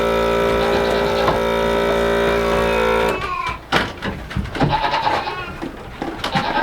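A goat milking machine's motor hums steadily, then cuts off about three seconds in. After that, goats bleat a few times among scattered knocks.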